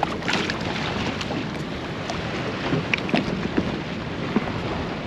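Choppy water lapping and slapping against a fishing kayak's hull, with wind buffeting the microphone and a few sharper splashes scattered through.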